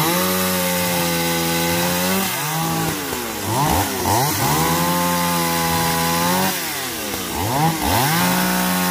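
Two-stroke chainsaw running at high revs while cutting small logs. Its pitch drops and climbs back several times as the throttle is eased and opened again.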